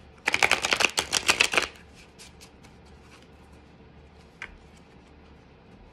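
A deck of tarot cards riffle-shuffled: a rapid flurry of card edges flicking for about a second and a half, then a few faint taps.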